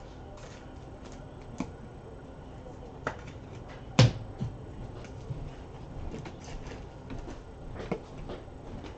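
Trading cards being handled on a table: scattered light clicks and taps with soft rustling, and one sharp knock about four seconds in.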